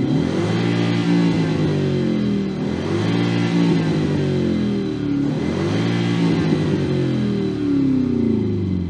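THOR active-exhaust loudspeaker on a BMW 320i playing its Mercedes-AMG C63 engine-sound profile as the stationary car is revved. It gives three revs, each climbing quickly and then dropping back slowly, mimicking the C63's V8 exhaust note.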